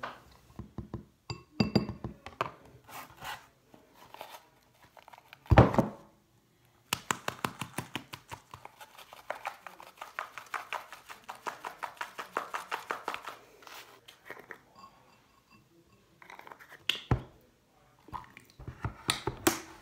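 Spoon or whisk clinking and scraping in a ceramic bowl while a homemade hair-lightening mixture is made. There is one loud thunk about five seconds in and a fast run of ticks, about ten a second, lasting several seconds from the middle. A second knock comes near the end, as liquid is poured from a bottle into the bowl.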